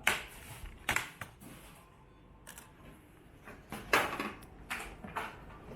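Hands working on an all-in-one PC during disassembly: several sharp clicks and light knocks of plastic and metal parts, the loudest at the start and about four seconds in.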